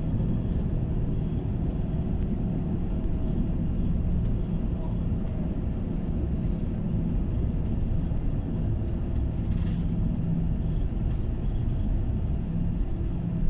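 Steady engine and road rumble heard inside a moving coach bus.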